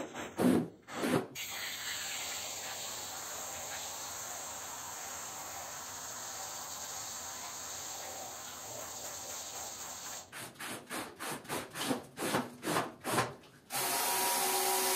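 Squeegee strokes scraping soapy water across a wet pile rug, then a steady hiss of a water spray rinsing the rug for about eight seconds. After that comes a quick run of scraping strokes, about two a second, and a steady hiss with a faint hum starts near the end.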